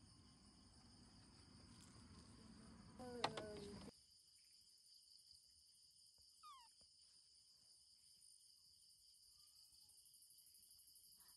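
Night insects chirring steadily and faintly in several high-pitched bands. A short pitched vocal sound comes about three seconds in, and a brief falling squeak about six and a half seconds in.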